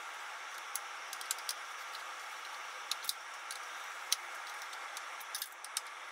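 Screwdriver working the small screws out of an Epson R3000 print-head carriage's sheet-metal bracket: faint, irregular metallic ticks and clicks over a low hiss.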